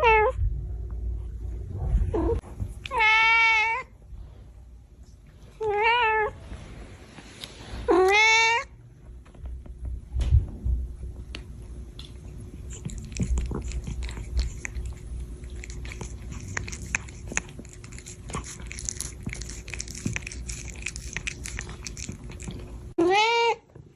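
Domestic cat meowing: four short meows in the first nine seconds and one more near the end, each rising then falling in pitch. Scattered clicks and rustling fill the long gap between them.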